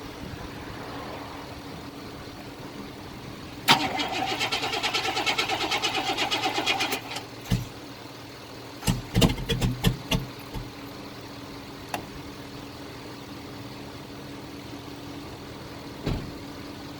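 A 1999 Chevy Tahoe's engine cranking on the starter in rapid, even pulses for about three seconds, over a steady low hum. A couple of seconds later comes a cluster of loud knocks, then a few single knocks.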